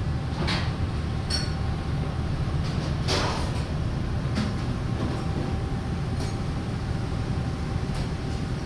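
Cruise boat's engines running under way: a steady low rumble, with a few light clinks and ticks scattered through it.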